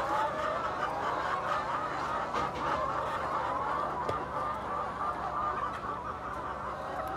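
A flock of brown laying hens clucking, many calls overlapping at once.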